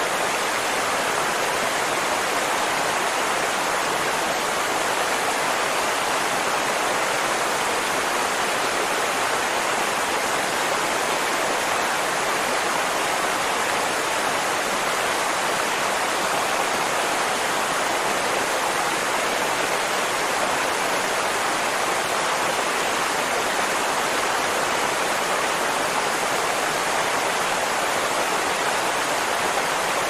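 Waterfall: many curtains of water falling down a cliff into a pool, giving a steady, unbroken rushing.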